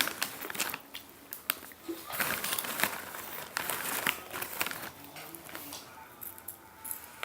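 Plastic snack packaging crinkling and rustling as it is handled, with scattered sharp crackles and clicks.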